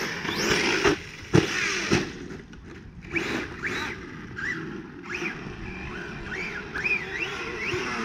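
A 6S brushless RC car runs over rough ground and crashes with a sharp impact about a second and a half in, followed by a smaller knock. After that come a string of short rising electric motor whines as the throttle is blipped.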